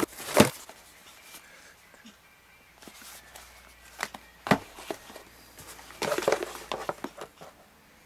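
Small cardboard boxes handled on a tabletop: a sharp knock just after the start as a box is set down, a couple of light taps about halfway as one box is stacked on the other, and a stretch of cardboard rustling and scraping near the end.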